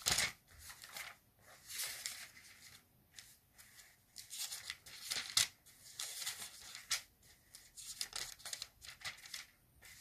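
Thin Bible pages being leafed through: a run of irregular paper rustles and flicks as the pages are turned to find a verse.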